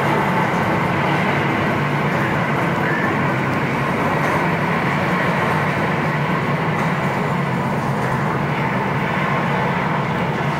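A steady, loud wash of rumbling noise with a low hum underneath, unbroken and unchanging throughout.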